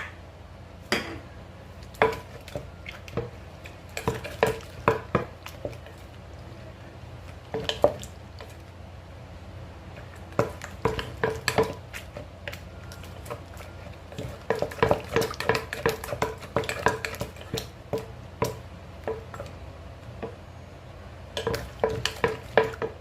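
Pestle knocking in a mortar as a Thai pounded salad is pounded and mixed: irregular knocks and clatter coming in clusters, with a quick run of strikes in the middle and another near the end.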